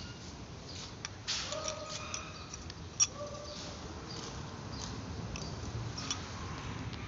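Small metal clicks and light scraping as a brass seal ring is worked onto the shaft of a Mitsubishi Canter turbocharger during reassembly, with one sharp click about three seconds in.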